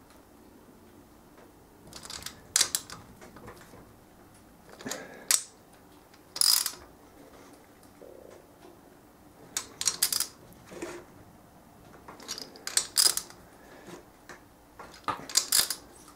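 Small ratchet wrench clicking and clinking on the cylinder-head nuts of a pit bike engine, in short separate bursts with pauses between, as the head nuts are given their final tightening by feel.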